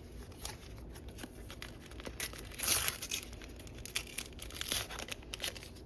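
A Panini sticker packet being torn open, its wrapper crinkling and rustling, with the loudest tearing about two to three seconds in and again near five seconds.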